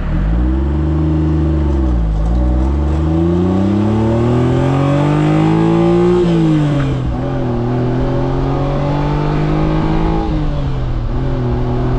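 Honda Beat's naturally aspirated 656 cc three-cylinder engine accelerating through the gears: its pitch climbs in each gear and drops at the shifts about two, six and a half and ten and a half seconds in. Heard from outside the rear of the car.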